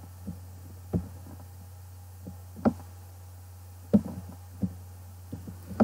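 Scattered soft clicks and knocks, about seven of them, from a computer mouse being clicked and scrolled, over a steady low electrical hum.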